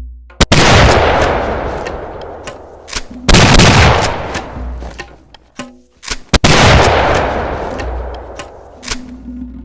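Double-barrel shotgun fired three times, about three seconds apart, each loud blast trailing off in a long fading echo, with a few short sharp clicks between the shots.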